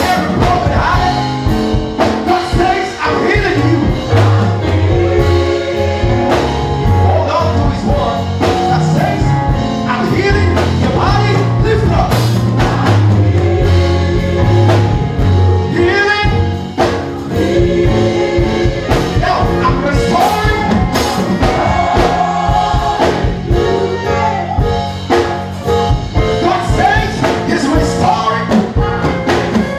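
Gospel choir singing a worship song with live keyboard accompaniment and a steady beat.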